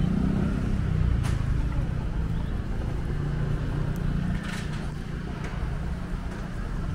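Busy city street ambience: a steady low rumble of traffic, with two brief sharp sounds, about a second in and around four and a half seconds in.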